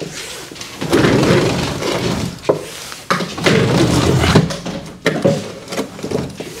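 Window roller shutter being rolled up, its slats rattling, in two long runs of about a second and a half each with a sharp click between them.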